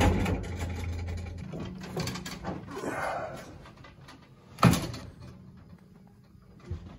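Wooden folding loft ladder and hatch being handled: soft rubbing and shuffling noises, with one sharp knock about two-thirds of the way through and a fainter knock near the end.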